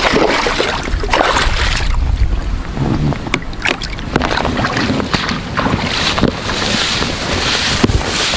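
Fish on a stringer thrashing and splashing in shallow water against the side of an inflatable boat, with a few sharp clicks in the middle. Wind buffets the microphone, most steadily near the end.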